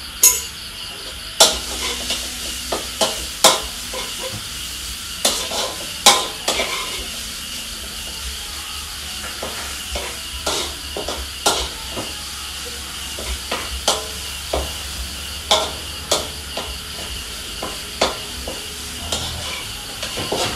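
Metal spatula scraping and knocking against a wok in irregular strokes, stir-frying in hot oil, with a steady sizzle underneath.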